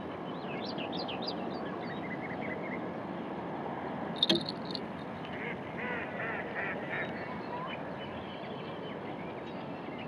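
Birds calling over a steady low rushing noise: a flurry of high calls in the first second and a half, one short loud call a little over four seconds in, then a run of repeated calls from about five to seven seconds in.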